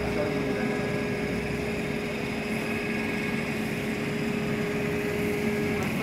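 CNC plasma cutting machine running, a steady machine hum with a constant tone that cuts off shortly before the end.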